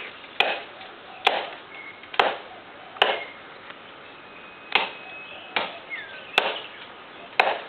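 Chopping blows of a blade into a mango tree bough, eight sharp strokes roughly a second apart with a short pause midway.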